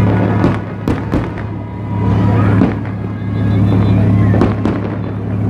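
Fireworks going off: several sharp bangs, three in the first second and a half and two more close together later. Under them run a steady low hum and music.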